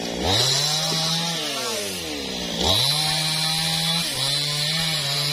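Two-stroke chainsaw, the New West 628, revved hard three times: its pitch climbs and holds, drops back toward idle, and climbs again, with a short dip just before the last rise.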